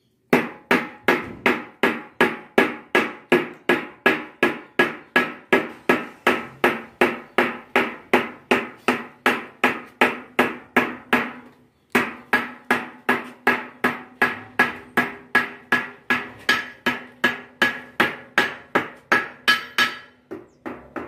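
Hammer tapping a hand chisel held against a curved sheet-metal mosque-dome panel, about two and a half strikes a second, each strike ringing metallically. There is a brief break about twelve seconds in, then the steady tapping resumes.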